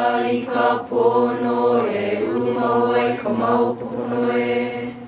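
A large group of voices chanting together in unison, holding a nearly level pitch in long phrases broken by short pauses for breath.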